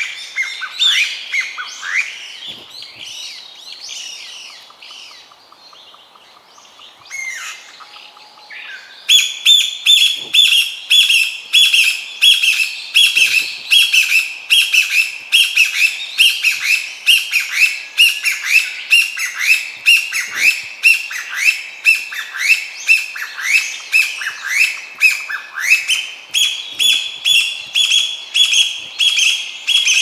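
Chinese bamboo partridge calling. Quieter falling notes come first, then about nine seconds in a loud, fast run of repeated shrill notes starts: its 'chotto-koi' song. Near the end the repeated notes step slightly higher.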